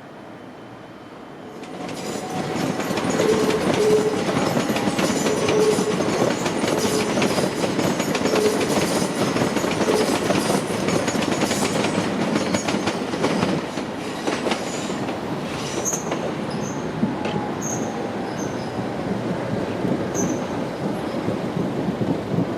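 Train running on the rails: the noise rises sharply about two seconds in to a loud rumble with wheels clattering over rail joints, and brief squealing tones here and there.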